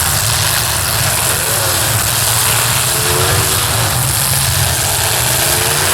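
Engines of many modified demolition derby cars running and revving together in a loud, steady din.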